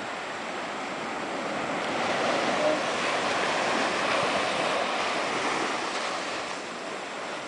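Ocean surf washing on a beach: a steady rush of wave noise that swells about two seconds in and eases off toward the end.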